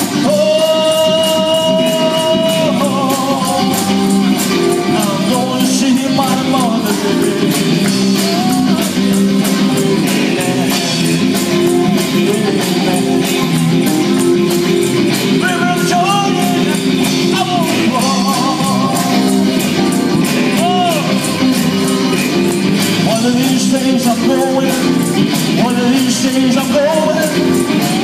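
Live band music: a man singing into a microphone over electric guitars and drums with a steady beat, with a long held note near the start.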